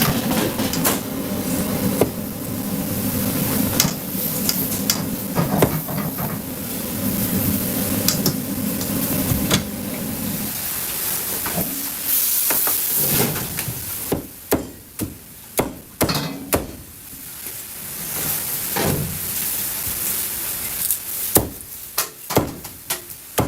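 Cleaver chopping on a chopping board: sharp, irregular chops, coming thick and fast in the second half. For the first ten seconds a steady mechanical hum runs underneath, then stops.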